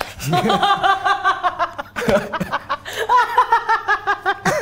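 A woman laughing hard, in quick high-pitched rhythmic pulses, in two long bouts with a short break about two seconds in.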